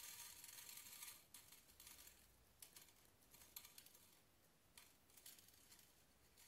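Faint crackling and clicking as a bead-filled rubber stress toy is torn apart by hand and small beads drop and scatter in a glass dish: a denser crackle in the first second, then sparse single clicks.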